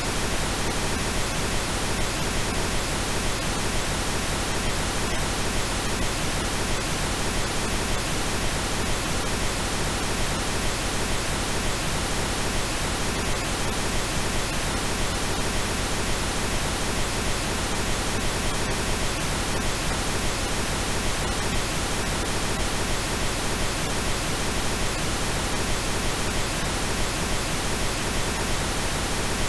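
Synthesized pink noise: a steady, unchanging hiss spread across the whole range of pitch.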